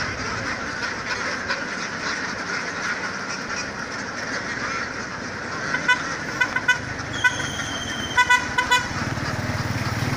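Short vehicle-horn beeps in quick runs between about six and nine seconds in, including one longer held toot, over a steady noisy din.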